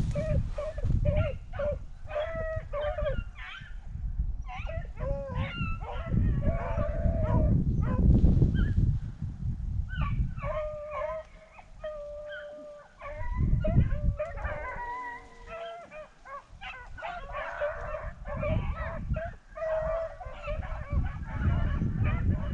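A pack of beagles baying and yipping, many dogs' voices overlapping continuously.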